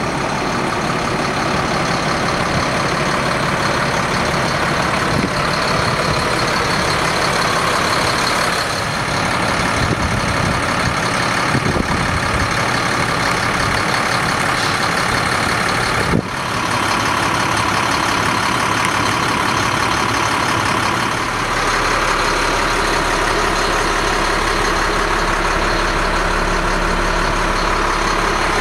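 A 2007 Ford F750 service truck's diesel engine idling steadily, heard close by, with a brief dip and click about halfway through.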